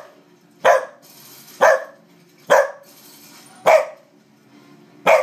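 A corgi barking: five short, sharp single barks at an even pace of about one a second.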